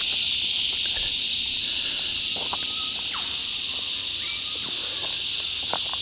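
A chorus of cicadas buzzing in one steady, unbroken drone, with a few faint clicks and short chirps over it.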